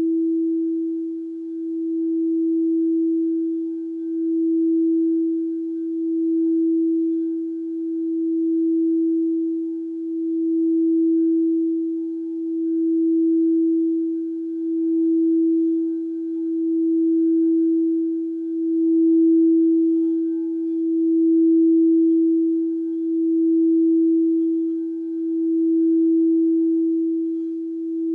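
Frosted quartz crystal singing bowl sung by rubbing a wand around its rim: one steady, sustained tone with faint overtones, swelling and easing about every two seconds.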